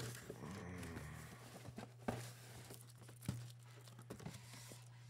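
Faint rustling and crinkling of a plastic mailer envelope as a book is slid out and handled, with a few light taps, over a steady low hum.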